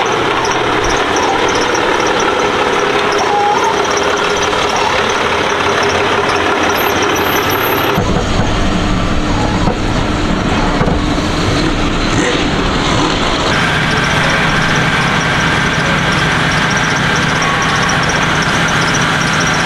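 Steady, dense vehicle and engine noise, its character changing abruptly about eight seconds in and again a little past thirteen seconds.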